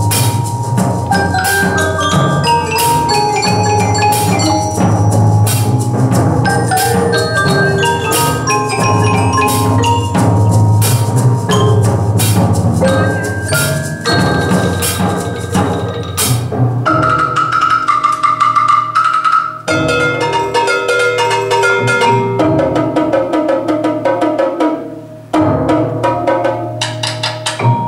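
Percussion ensemble playing a piece on marimbas, vibraphone, timpani and drum kit: quick ringing mallet notes over a low pulse. The music breaks off briefly about twenty seconds in and again about twenty-five seconds in.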